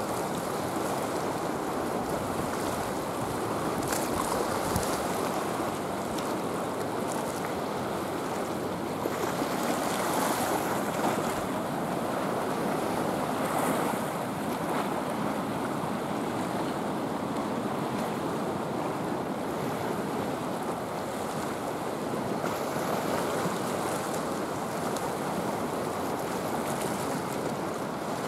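Small sea waves washing against a flat rocky shore: a steady rush of surf.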